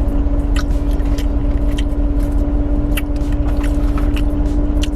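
Steady hum and low rumble of a running car heard from inside the cabin, with scattered short clicks of someone chewing a piece of sushi.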